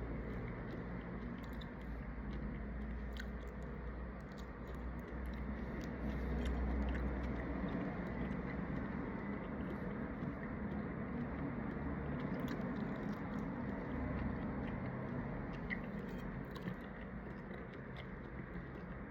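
A person biting and chewing shrimp, with many small, wet clicks scattered throughout over a steady low hum.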